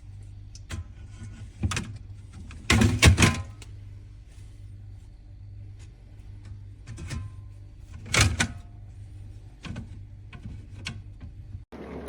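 Drink cans clunking and knocking against a plastic can organizer as they are handled, with a louder clatter about three seconds in. A steady low hum runs underneath.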